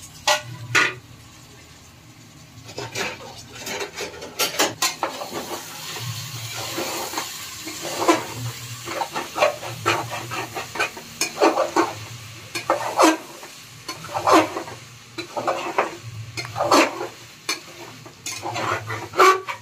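Metal spoon stirring vegetables in an aluminium pressure cooker, scraping and clinking against the pot at an irregular pace, over a faint sizzle of the vegetables frying in oil.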